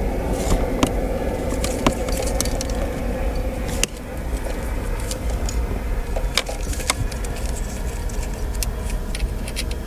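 Scattered sharp clicks and rattles of plastic wiring-harness plugs and cables being handled and pushed together behind a car stereo, over a steady low background hum.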